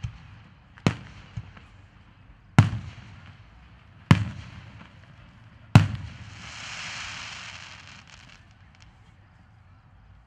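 Aerial fireworks shells bursting: four sharp bangs about a second and a half apart, each trailing off in a low rumbling echo. A hiss of about two seconds follows the last bang, then it goes quiet.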